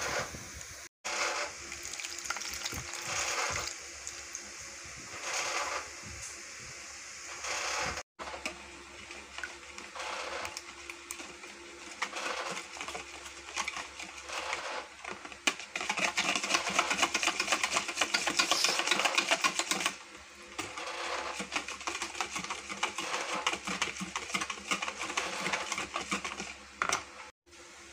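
Metal wire whisk beating egg and sugar in a plastic bowl: a fast, rhythmic clatter and scrape of the wires against the bowl, loudest for a few seconds past the middle and broken by a few brief gaps.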